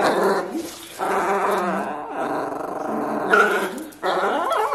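Small puppy growling in play while it tugs on a shoe, in long stretches with short breaks about a second in and again near the end.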